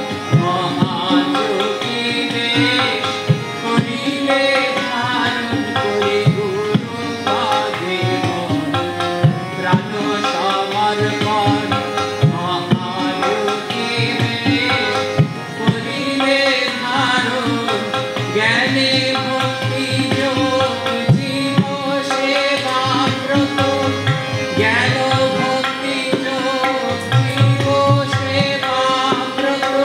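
A man singing a song to his own harmonium accompaniment, the harmonium's reeds sustaining chords under the voice, with steady hand-drum strokes keeping time throughout.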